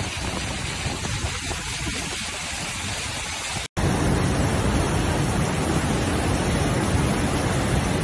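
Rushing floodwater: the steady, noisy rush of a muddy flash-flood torrent, starting after a sudden cut a little under four seconds in. Before the cut, a rougher noise of wind and water.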